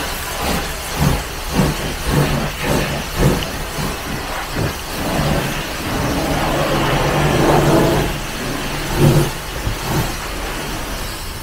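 Long-handled chenille wash brush scrubbing thick snow foam on a car's bonnet and windscreen, over a steady mechanical hum and hiss.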